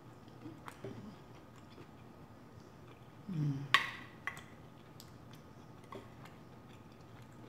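Faint wet clicks of close-up chewing, then a brief low hum a little after three seconds in. Just under four seconds in, a wooden spoon clacks sharply against a ceramic plate, followed by a smaller tap.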